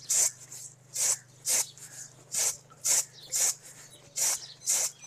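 Raw rice being cleaned by tossing it in a steel plate: the grains rustle and slide against the metal in short strokes, about two a second.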